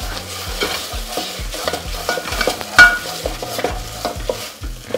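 Wooden spoon stirring and scraping spinach around a ceramic-coated pot in quick strokes, about three a second, as the greens fry. The spoon knocks sharply against the pot once, about three seconds in.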